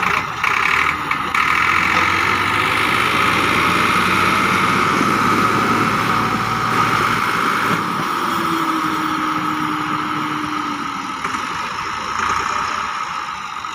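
Diesel engines of two Massey Ferguson tractors running hard under load, the lead tractor chained ahead to pull a Millat MF-260 and its loaded trolley out of a pit, with the rear wheels spinning in loose dirt.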